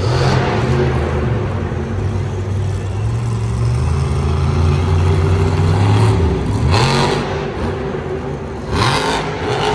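Monster truck engine running at steady high revs, then twice dropping off and revving back up.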